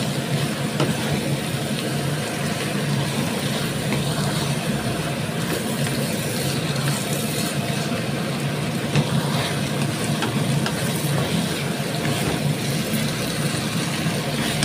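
Glass noodles being tossed in a frying pan with a wooden spatula: light scrapes and a few taps over a steady low hum.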